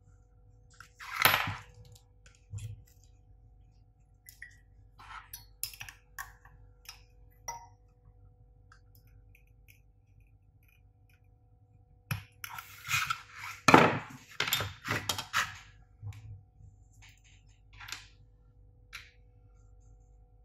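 Metal clicks, knocks and scrapes of hand tools and small parts against a metal heatsink and the workbench while a power transistor (IGBT) is screwed onto the heatsink. One loud knock about a second in, then scattered clicks, and a busy run of knocks and scraping about twelve to sixteen seconds in, the loudest near fourteen seconds.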